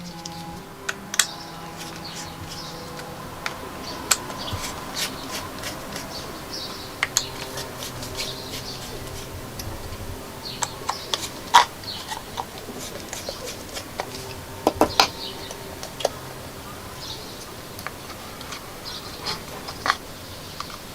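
Scattered light clicks and taps of handling, a few sharper knocks among them, over a faint steady background with some soft steady tones in the first half.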